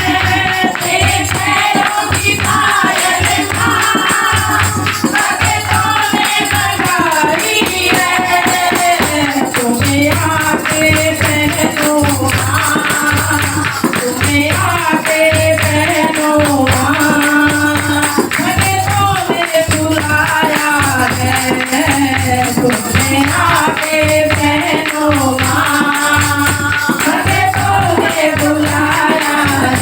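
Hindu devotional kirtan music: a melody line over jingling tambourine and a steady low drum beat.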